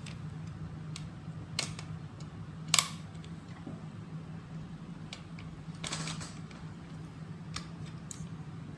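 Plastic parts of a gel blaster being handled during disassembly: scattered light clicks, a sharper clack about three seconds in and a short scrape around six seconds in, over a steady low hum.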